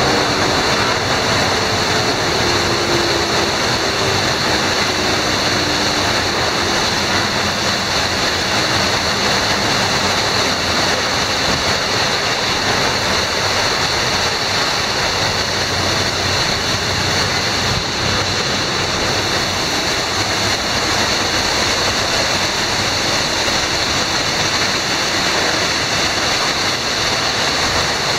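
PECO PE 145 high-pressure rinse arch spraying water jets onto a vehicle in an automatic car wash bay: a loud, steady hiss of spray. In the first few seconds a machine whine falls in pitch and fades under it.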